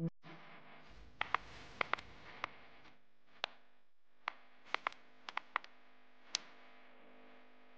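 Car dashboard switches clicking under a finger, the four-wheel-drive mode buttons and the mirror-adjust knob: about a dozen short, sharp clicks, several in quick pairs, over a steady low hum.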